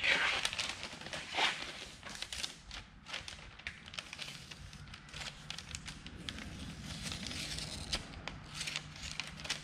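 A large sheet of paper rustling and crinkling as hands press and crease it over a car's windshield opening, with many small irregular crackles; the loudest rustles come right at the start and about a second and a half in.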